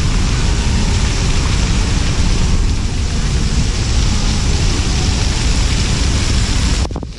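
Outdoor water fountain jets spraying and splashing down in a steady loud rushing hiss, with wind buffeting the microphone; the sound drops away abruptly near the end.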